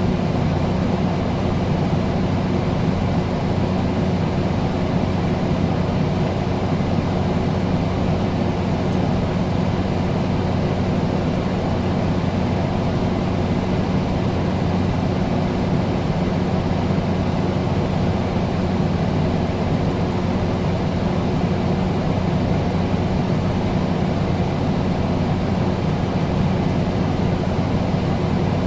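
Air conditioner running steadily: an even rush of moving air over a constant low hum, with no change in speed or pitch.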